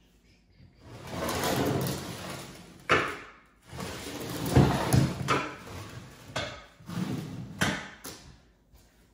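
Stoneware crocks being slid and set down on a hardwood floor: a long scrape, then several sharp knocks and thuds of heavy ceramic against wood.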